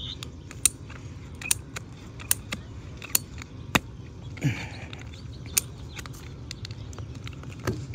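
Ratcheting PVC pipe cutter working its blade through a 3/4-inch PVC pipe: sharp ratchet clicks at irregular intervals, a few to a second, as the handle is squeezed.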